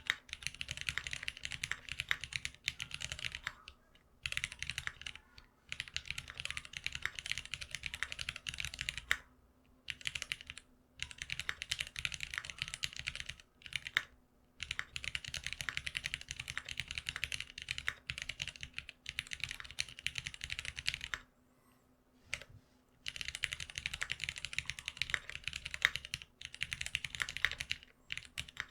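Typing on a GeonWorks F1-8X custom keyboard fitted with lubed Cherry retooled Black linear switches on 65 g long springs. Rapid keystrokes come in runs of several seconds, broken by short pauses, the longest about 21 seconds in.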